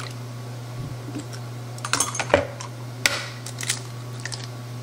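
Eggs being cracked into a mixing bowl: several sharp clicks and taps of eggshell against the bowl rim, the loudest about halfway through, over a steady low hum.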